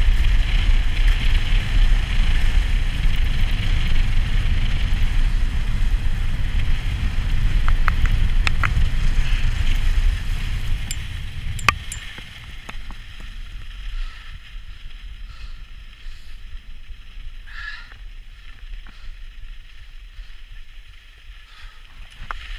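Skis running fast over groomed snow, a steady scraping hiss mixed with wind rumble on the camera microphone, with a few sharp clicks; about halfway through it drops to a much quieter hiss.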